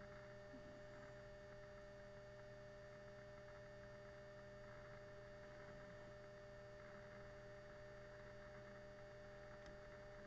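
Near silence: a faint steady hum with low hiss, no other sound.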